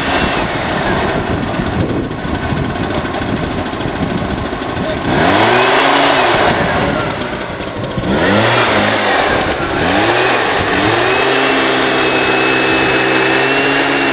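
Small two-stroke engine of a backpack motorized duster revving up and down several times, then held steady at high speed near the end. The duster is blowing pollen through a long hose into a date palm's crown for mechanical pollination.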